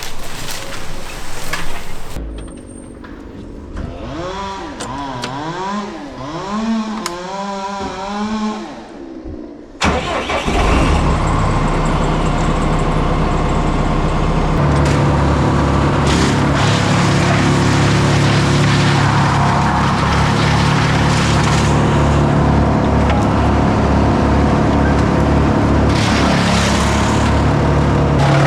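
A quieter stretch with a wavering, gliding pitched sound, then an engine starts abruptly about ten seconds in and runs on steadily at a low, even pitch.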